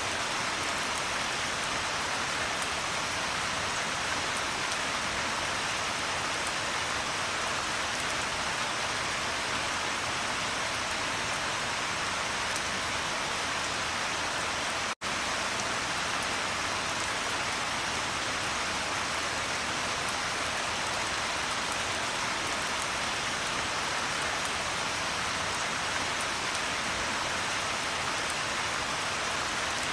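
Steady rain falling, an even hiss with a faint patter of drops. It cuts out for an instant about halfway through, then carries on unchanged.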